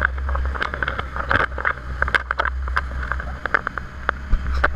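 Dive boat's engine running steadily underway as a low drone, with many short, irregular knocks and clicks over it.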